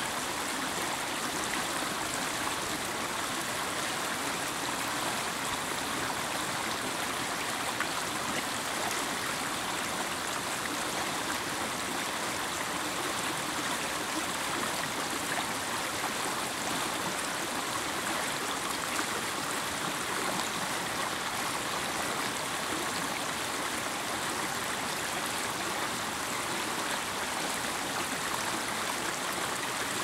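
Shallow stream flowing over stones: a steady, unbroken babble of running water.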